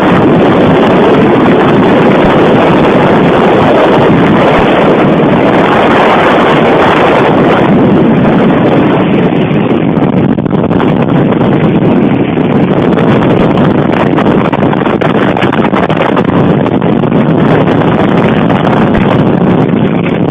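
Loud, steady rushing noise without distinct tones or strokes.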